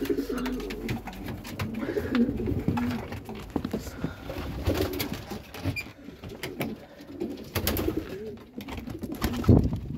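Domestic pigeons cooing in repeated wavering calls, the courting males of nesting pairs, with scattered knocks and clicks.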